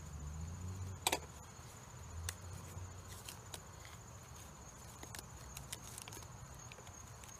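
Bark being pried and flaked off a rotting log by hand: scattered small cracks and snaps, the sharpest about a second in, over a steady high-pitched insect trill.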